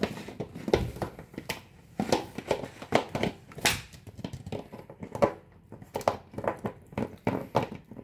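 Yellow Labrador retriever chewing a green plastic bottle, the plastic crackling and crunching in irregular snaps, a few a second.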